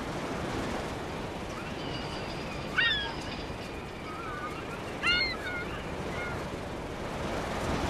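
Birds calling over a steady rushing noise: several short calls that rise and fall in pitch, the two loudest about three and five seconds in.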